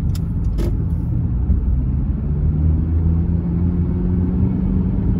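Honda CR-V's four-cylinder engine and road noise heard from inside the cabin while driving, a steady low hum. The engine runs smoothly without misfiring on newly fitted spark plugs.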